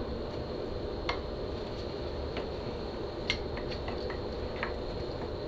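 A few light metallic clicks and clinks as the Honda CRF450's greased front axle and wheel are fitted back into the forks, over a steady background hum.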